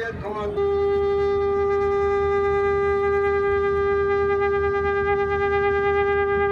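A long, curved horn shofar sounding one long, steady blast at a single held pitch, starting just over half a second in after a moment of crowd voices.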